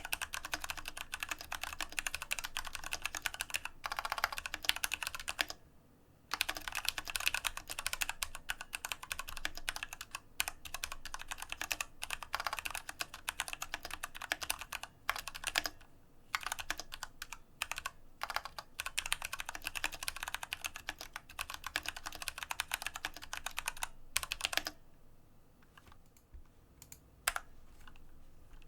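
Typing on an IQUNIX F96 mechanical keyboard with tactile Cherry MX Brown switches, on a desk mat: a fast, continuous run of keystrokes. It pauses briefly about six seconds in, and near the end thins to a few scattered keystrokes before picking up again.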